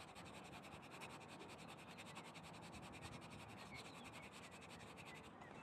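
Faint, rapid scratching of sandpaper rubbed back and forth on a rubber bicycle inner tube, roughening the surface around the puncture before a self-adhesive patch goes on.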